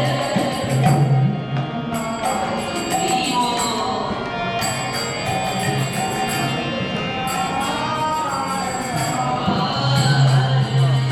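Devotional kirtan: voices singing a chant to jingling hand percussion.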